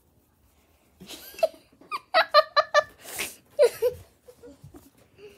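A child laughing: a quick run of high 'ha-ha' notes about two seconds in, with breathy gasps before and after. The sound fades to faint shuffling near the end.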